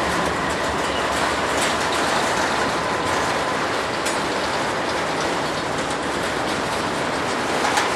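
Freight train of autorack cars rolling steadily past: continuous rumble and clatter of steel wheels on the rails, with a few sharp clicks over rail joints.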